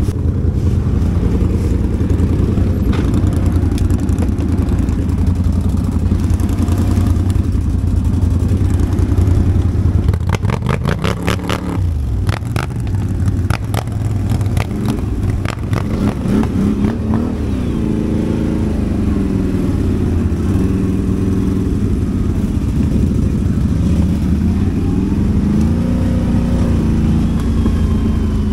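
ATV engine running under riding load, its pitch rising and falling several times as the throttle is worked. Around the middle comes a run of quick rattling knocks.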